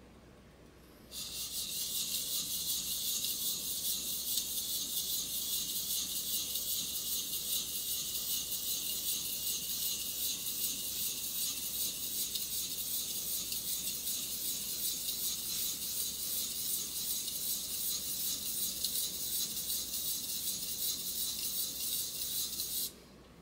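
Double-bevel kitchen knife stroked rapidly back and forth on a wet whetstone, sharpening the second side of the blade: a steady, rhythmic scraping of steel on stone that starts about a second in and stops abruptly near the end.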